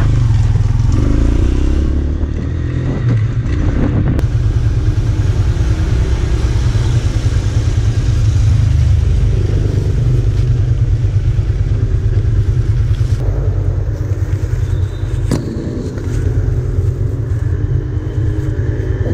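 Honda TMX 155 single-cylinder motorcycle engine running with a steady low pulse, and a couple of sharp knocks about four seconds in and near the three-quarter mark.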